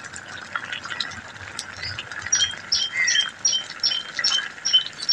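Slurping broth off a spoon, with a high two-pitched chirp repeating about two to three times a second from about two seconds in.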